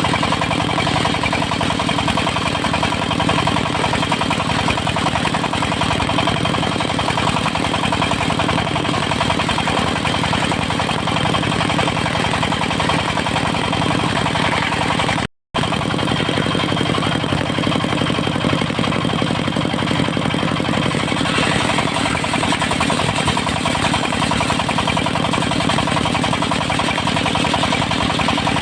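Diesel engine of a mobile circular sawmill running steadily, with fast, even firing pulses. The sound cuts out for a moment about halfway through.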